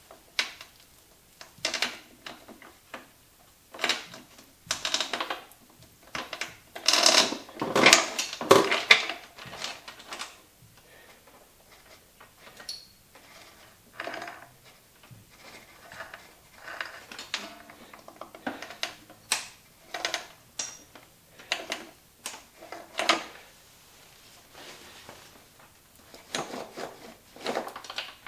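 Motorcycle drive chain clinking and rattling in irregular bursts as it is fed by hand over the rear sprocket, with the busiest clatter a few seconds in.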